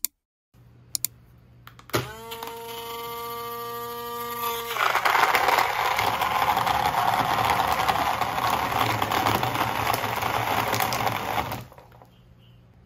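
Portable cup blender: a couple of button clicks, then the motor spins up to a steady whine and changes to a louder churning as it blends the milkshake, running about ten seconds before cutting off abruptly.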